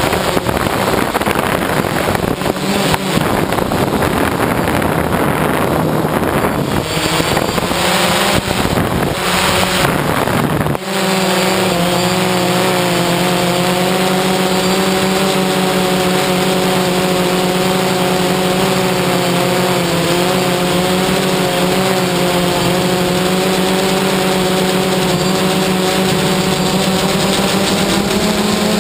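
DJI Phantom quadcopter's electric motors and propellers running in flight, heard from the camera on the drone itself. For roughly the first ten seconds wind rushes and buffets over the microphone. Then the sound settles into a steady, even hum of several pitches.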